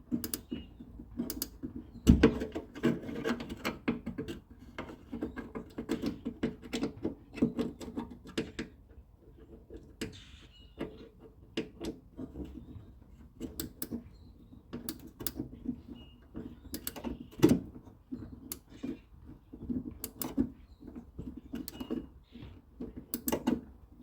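A Chapman ratcheting wrench clicking in short runs as it tightens the outer door handle's fasteners inside a steel car door, with knocks of tool on metal. There are louder knocks about two seconds in and again past the middle.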